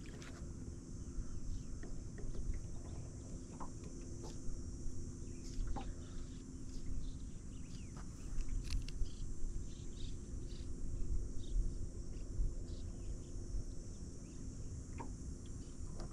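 Outdoor ambience on a small boat on a lake: wind rumble on the microphone, a steady high insect drone, and a faint steady low hum, with scattered small clicks.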